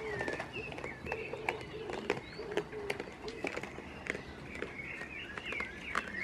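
Birds chirping and calling, with a lower wavering call underneath and many scattered sharp clicks and taps.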